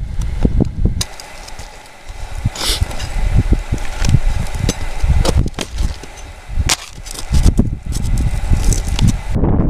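Roof shingles being pried and torn off: an irregular run of sharp knocks, cracks and scrapes, with wind buffeting the microphone underneath.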